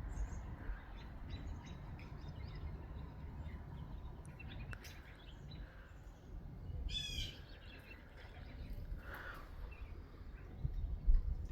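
Backyard birds calling faintly over a steady low outdoor rumble, with one clearer call about seven seconds in.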